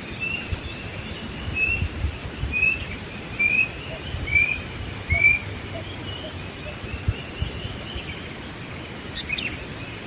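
A wild bird calling a series of short rising whistled notes, about one every 0.8 seconds over the first half, followed by a few higher short notes, over a steady high-pitched buzz of insects. Low irregular rumbles run underneath.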